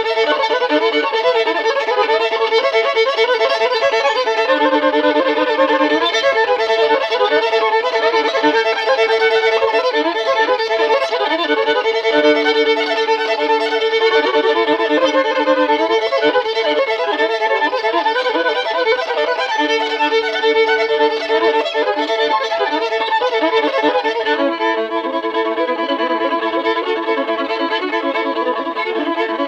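Fiddle music: a bowed violin playing a busy, repeating hillbilly-style line over long held drone notes, with a lower drone note coming and going.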